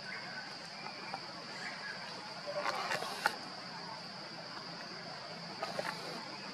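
Insects droning steadily at a high pitch, with faint chirps and, about three seconds in, a brief rustle with a couple of sharp clicks.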